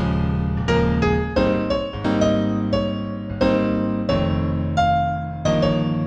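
Slow, sad solo melody in A minor on a synthesized piano from a composition app. A new note or chord is struck about every two-thirds of a second, each ringing and then fading.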